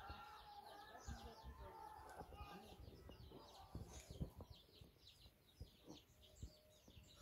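Faint chirping of small birds: many quick, repeated high chirps, with a few soft knocks.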